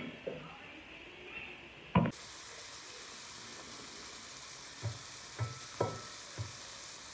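Fish fillets frying in curry-seasoned oil in a frying pan, a steady sizzle that sets in about two seconds in, right after a sharp knock. A few light knocks come over the sizzle near the end.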